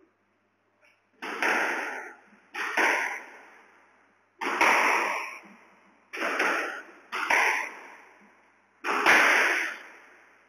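Squash ball being hit back and forth: six sharp racket-and-wall cracks a second or two apart, each ringing out in the court's echo.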